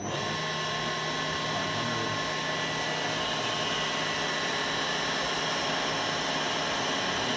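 Johnford SV24 vertical machining center's spindle running at a steady speed: an even whirring hum with several steady whine tones, cutting off near the end.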